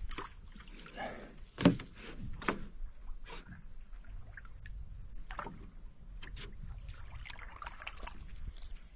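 A dog lapping and splashing at the pond's surface over the side of a canoe, with irregular small splashes and drips; one louder hit about a second and a half in.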